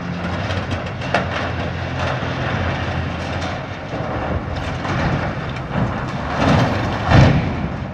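A rusted steel water tower toppling as an excavator pulls it over: the excavator's engine runs under load while the tower's steel frame creaks and cracks. It ends in a loud crash about seven seconds in as the tower comes down.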